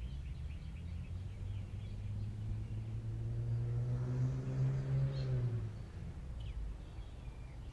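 A low engine drone from a passing vehicle, swelling to its loudest about four to five seconds in and then fading away, with faint bird chirps.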